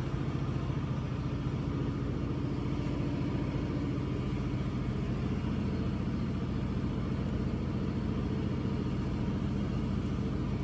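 A machine running steadily nearby: a low, even hum that holds one pitch throughout.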